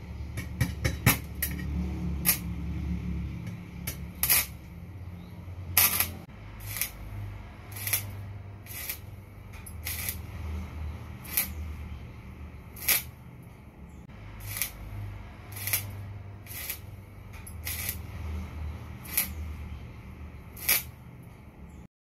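Solar-powered 20–28 V DC stick welding on a rusty steel pipe: the arc crackling and sputtering, with sharp pops about once a second over a steady low hum.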